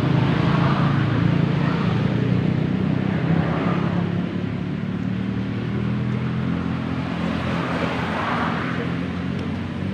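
Road traffic: a motor vehicle engine running steadily, with traffic noise swelling and fading twice as vehicles pass.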